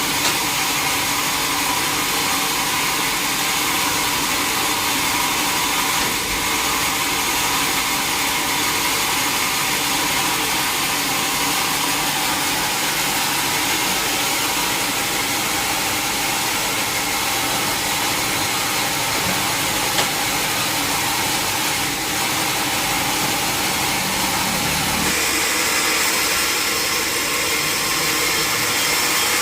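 Sawmill machinery running steadily with a continuous mechanical hum and hiss; near the end the tone shifts, with less low hum and more high hiss.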